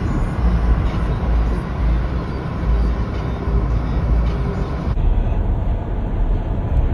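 Wind buffeting the microphone in a heavy, uneven rumble over the wash of ocean surf breaking on the beach.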